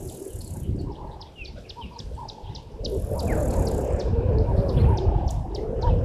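Birds giving many quick, sharp chirps, with one short falling call about three seconds in. Under them is a low rumbling background noise that gets louder about halfway through.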